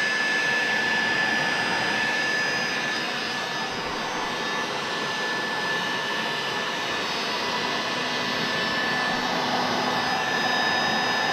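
Electric hot-air blower running steadily with a thin high whine over the rush of air, heating the taped plastic RC body until it goes glossy.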